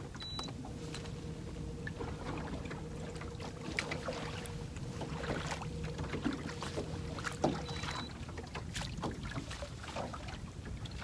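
Small fishing boat sitting on the water: light knocks and water lapping at the hull, with a faint steady hum that stops about eight seconds in.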